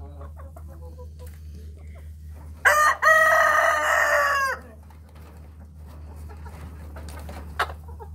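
A rooster crowing once, about three seconds in: a short first note, then a long held one that drops away at the end.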